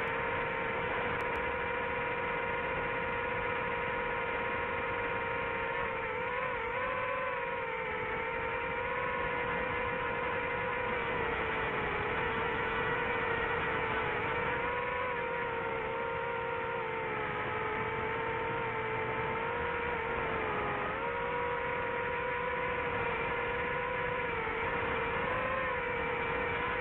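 DJI FPV drone's motors and propellers whining steadily in flight, the pitch dipping and rising a little every few seconds as the throttle changes.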